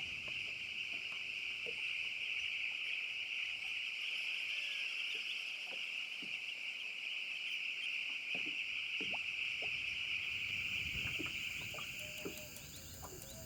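A rainforest insect chorus: a steady, high-pitched, even buzzing drone with a few faint scattered clicks, fading out near the end.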